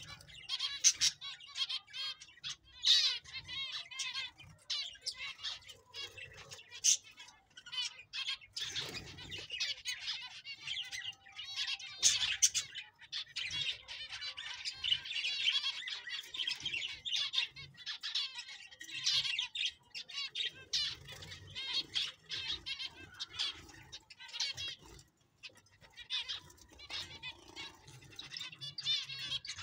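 A flock of zebra finches calling, a dense, overlapping run of short chirps and calls that goes on throughout.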